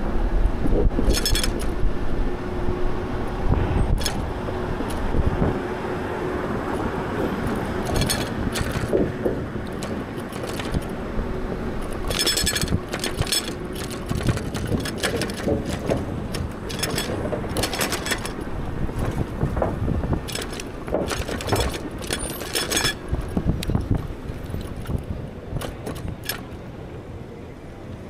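Riding an e-bike on city streets: a steady rumble of road and wind noise, with a hum through the first half. Short bursts of metallic rattling and clicking come several times, as the bike goes over bumps.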